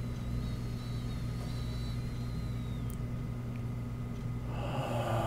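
A steady low electrical-sounding hum, with a faint thin high tone that wavers and fades out about three seconds in. Near the end comes a soft breathy rush.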